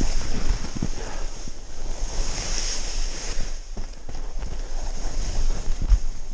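Snowboard sliding and carving through soft snow, a steady scraping hiss with a few bumps and thumps, the strongest near the end, over wind rushing on the rider's camera microphone.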